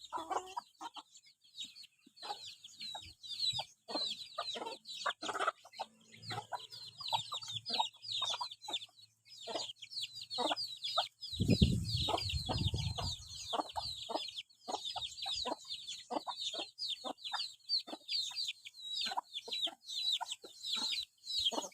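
Chickens clucking, with short calls scattered throughout over a continuous dense, rapid high chirping. A loud low rumble about halfway through lasts a second or two.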